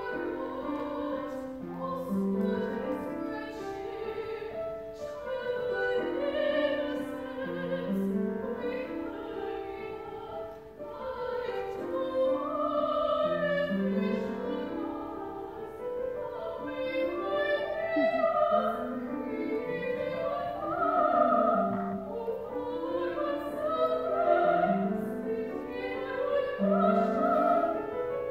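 Operatic singing with piano accompaniment. The piano plays repeated rising figures every few seconds under sustained sung lines.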